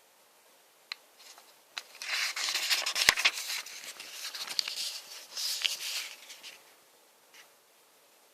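Packaging being handled during an unboxing: a couple of sharp clicks, then about four seconds of crinkling and rustling with a loud click in the middle, and a last small click near the end.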